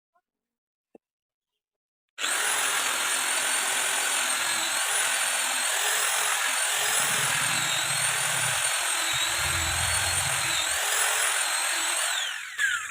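A high-speed electric power tool working wood switches on about two seconds in and runs steadily with a high whine that wavers in pitch as it meets the workpiece, then is switched off near the end, its whine falling as it winds down and stops.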